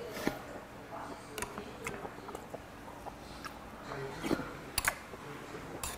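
Eating sounds from a bowl of sundae gukbap: a metal spoon clicking now and then against the bowl, with a cluster of clicks and chewing as a mouthful is taken about four seconds in.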